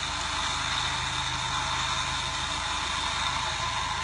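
An off-road 4x4's engine idling steadily with a low, even pulse, under a constant hiss.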